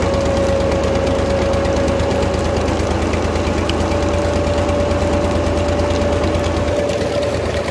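Massey Ferguson 135 tractor engine running steadily under load, driving a sugarcane crusher through a long shaft, with a steady whine over the engine's rapid low throb.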